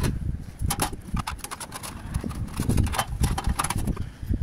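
Sheet-metal flashing tray being handled and fitted against a chimney on a clay-tile roof: an irregular run of knocks and clatter as the metal meets the tiles and the back tray, over a low rumble.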